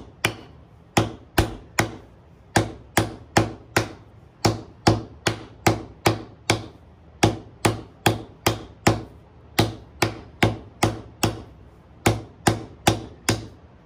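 A white-headed mallet striking a copper disc held in a wooden bowl-shaped sinking block, a steady run of sharp blows about two to three a second with a few short pauses, as the disc is sunk into a shallow dish.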